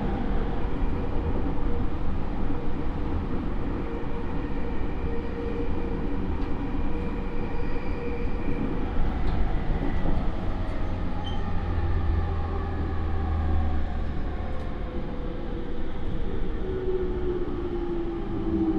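Running sound inside a JR East E231 series commuter train's motor car: a steady rumble of wheels on rail with faint tones from the Mitsubishi IGBT inverter and traction motors. Near the end, a few motor tones slide down in pitch.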